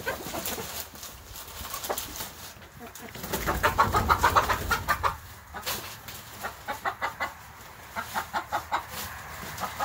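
Domestic chickens clucking in quick runs of short notes. The loudest flurry comes about four seconds in, as a hen flaps up into the air.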